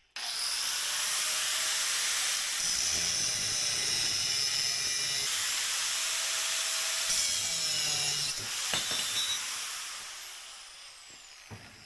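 Power saw cutting a piece of metal stock with a steady hissing rasp, then winding down with a falling whine over the last few seconds.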